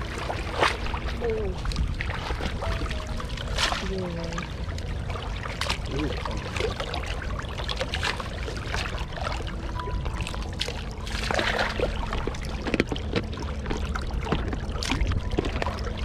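Shallow water splashing and trickling as a woven bamboo basket is worked through it, the water draining through the weave in many small splashes.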